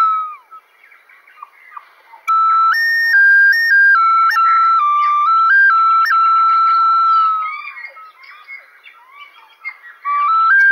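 A simple melody on a flute-like wind instrument or whistle, moving in clean steps from note to note. A held note trails off at the start. A phrase of stepping notes runs from about two seconds in and ends on a long note that falls away, and a new phrase starts near the end. Faint bird chirps are heard in the pauses.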